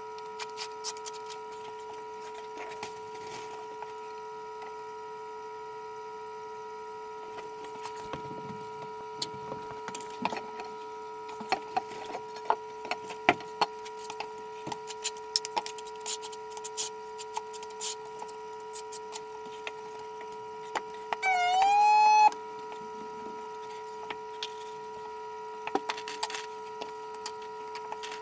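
Notched steel trowel scraping and combing thinset mortar, on the Ditra membrane and then on the back of a large porcelain tile, with scattered small scrapes and clicks over a steady hum. About three-quarters of the way through, a loud high tone sounds once for about a second, rising slightly and then holding.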